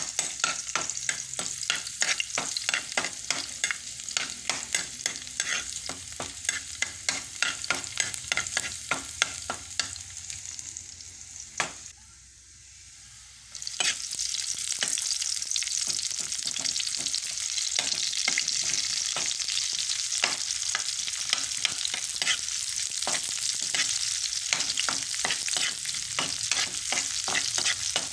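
Food sizzling in a frying pan while a spatula stirs and scrapes it, with quick repeated scrapes through the first half. About halfway through the sound drops briefly, then the sizzling comes back louder and steadier.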